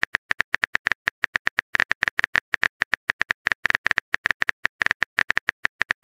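Phone keyboard typing sound effect: a quick, even run of short key clicks, about seven a second, one for each letter as a text message is typed out.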